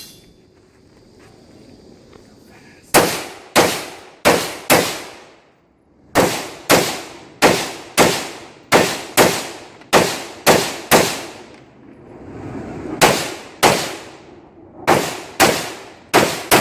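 Rifle shots fired in quick strings, about two a second, roughly two dozen in all, each followed by a short ringing echo, with brief pauses between strings.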